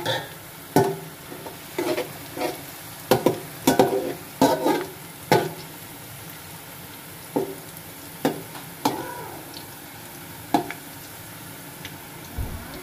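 Sliced onions frying in hot oil, nearly golden brown, with a steady sizzle. A slotted metal spatula scrapes and knocks against the metal pot as they are stirred, often in the first half and only now and then after.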